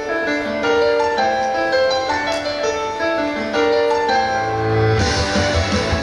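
Pop song intro on keyboard: a melody of held notes, then about five seconds in the drums and bass come in with the full band.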